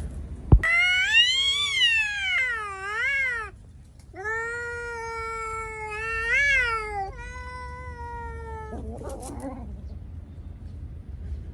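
Domestic cat giving two long, drawn-out yowling meows: the first wavers up and down in pitch, the second is held mostly steady with a rise and fall partway through. A sharp thump comes just before the first call, and a short rough, noisy sound follows the second.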